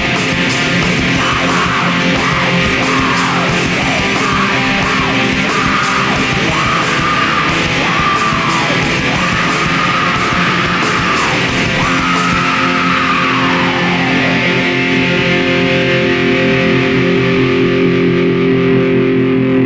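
Raw black metal/blackgaze music: a dense wall of distorted electric guitars over drums and cymbal wash, with a high melody line bending up and down. About two-thirds of the way in the cymbals drop away, leaving the guitars holding sustained chords.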